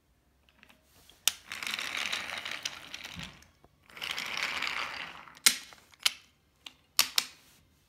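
Wooden toy trains rolling along wooden railway track, pushed by hand: two stretches of rattling wheel noise, with several sharp wooden clacks, one about a second in and the rest near the end.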